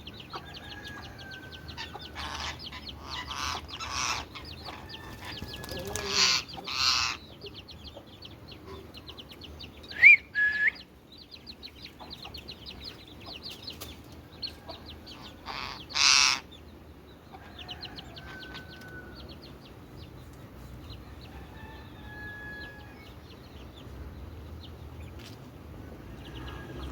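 Birds calling: runs of rapid high chirps throughout, broken by three loud harsh squawks and, about ten seconds in, a short rising whistle that is the loudest sound.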